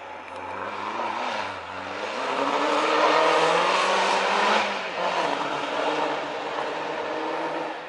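Pre-war racing car's engine accelerating hard up the hill. Its note climbs to its loudest, drops sharply at a gear change near five seconds in, then pulls on a little quieter.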